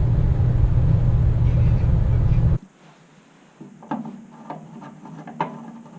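Loud, steady low rumble that cuts off abruptly about two and a half seconds in, followed by a quiet room with a few light clicks and knocks.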